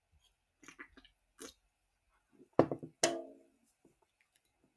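A man swallowing a few gulps from a soda can, then two short loud throat noises about two and a half seconds in, the second trailing off, as he clears his throat.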